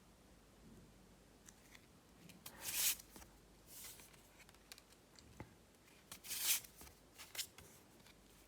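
Tarot cards being handled: a few short papery swishes and light taps as cards are slid and laid down, the loudest about three seconds in and again about six seconds in.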